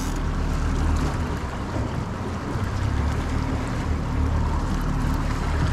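Twin outboard motors running at slow trolling speed, a steady low hum under the rushing wash of the boat's wake.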